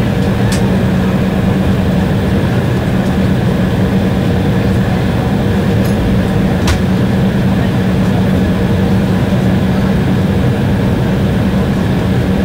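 Steady cabin noise of an Embraer 170 taxiing, its two General Electric CF34 turbofans running at low taxi power and heard from inside the passenger cabin, with a steady low hum. Two faint clicks come through, one near the start and one about halfway.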